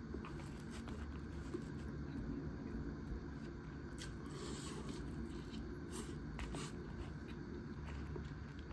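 Someone eating a tatsuta-age fried chicken bento, chewing with scattered small clicks, and a brief scraping rustle about four seconds in.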